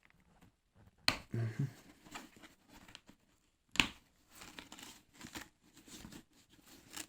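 Foam comfort liner being pulled out of a motorcycle helmet: a hook-and-loop fastener tearing loose and padding rustling, with a sharp snap about a second in and a louder one a little past halfway.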